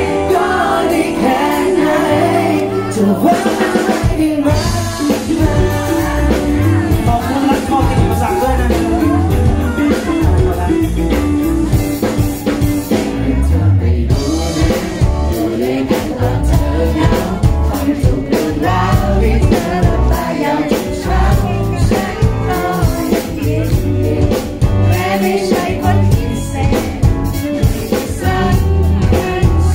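A man singing a pop song live into a handheld microphone, amplified through PA speakers over music with a steady low beat.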